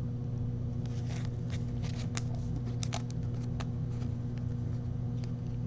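Baseball trading cards handled between the fingers: a few faint light clicks and rustles, mostly between about one and four seconds in, over a steady low hum.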